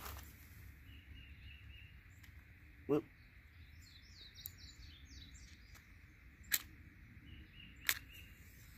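Outdoor ambience: wind rumbling on the microphone, with a bird singing a quick run of chirps in the middle and three short sharp clicks, about three, six and a half and eight seconds in.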